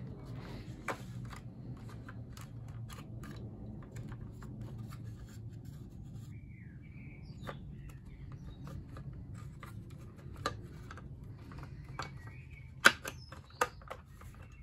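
Plastic housing halves and parts of a cordless nail and staple gun being handled and pressed together: scattered small clicks and scrapes, with one sharper click near the end.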